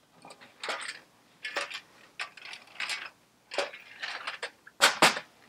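Small metal carburettor parts clinking and rattling as someone rummages through a small box of parts, in a string of short clicks with two sharper clicks close together near the end.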